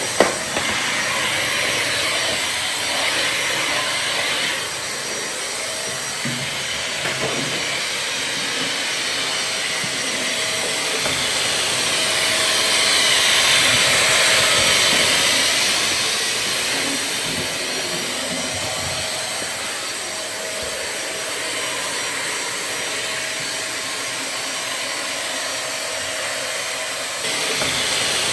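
Vacuum cleaner running steadily, a dense airy hiss with a faint underlying motor hum, swelling a little louder and brighter midway before settling back. A single sharp click just at the start.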